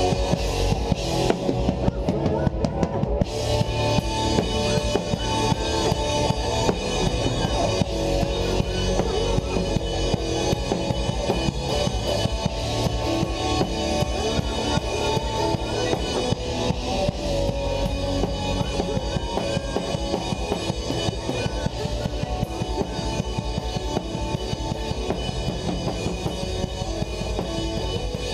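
Live band music with the drum kit loud and close, a steady beat on kick and snare under bass and guitars. The cymbals drop out briefly about two seconds in, then come back.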